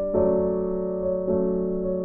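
Background music: soft piano or electric-piano chords, a new chord struck about every second and held.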